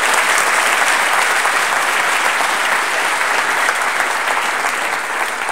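Large audience applauding, a dense, steady clapping at the close of a talk.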